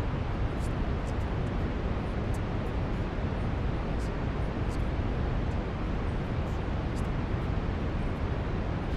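Steady brown noise: a deep, even rushing hiss, heaviest in the low end, with no change in level.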